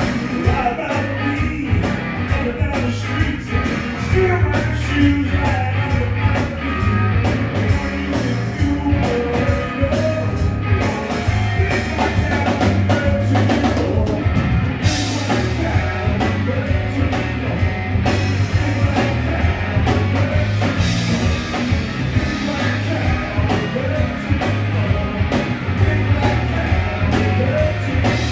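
Live rock band playing: electric guitar, electric bass and drum kit, with a steady driving beat and heavy bass.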